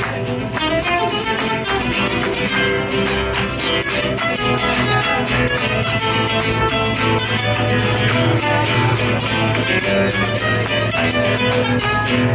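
Instrumental break of an Argentine folk song: strummed and plucked guitar with violin over a steady bass, with no singing.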